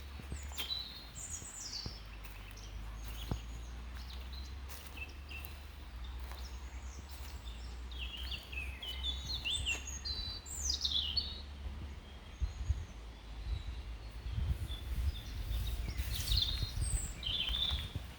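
Songbirds singing and calling: scattered high chirps and short trills, busiest in the middle and again near the end, over a low rumble.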